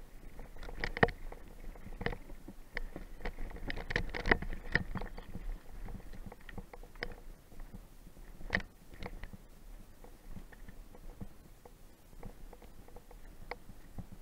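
Mountain bike clattering down a rocky trail: irregular knocks and rattles from the wheels, frame and chain hitting rocks, over a low rumble, heard through a helmet-mounted camera. The knocks come thickest in the first half, with a sharp hit about 8.5 seconds in, and thin out toward the end.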